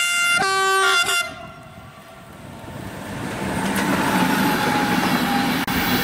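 SBB Re 460 electric locomotive sounding its horn: two short notes lasting about a second, the second lower than the first. Then the train's running noise on the rails swells as it approaches and passes close by.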